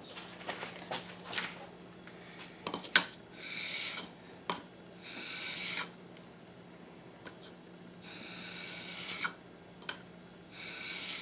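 Steel blade of a Craftool leather splitter rubbed flat across 320-grit wet/dry sandpaper: four scraping strokes of about a second each, with a sharp click about three seconds in.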